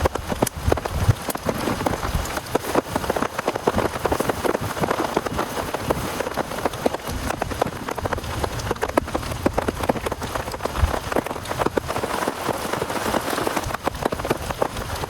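Heavy rain falling steadily, a dense run of close, sharp drop hits over a continuous wash of rain.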